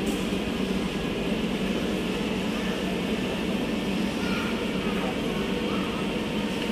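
Steady hum and rush of a stationary C151A metro train's air-conditioning and auxiliary equipment, heard from inside the car, with faint voices in the background.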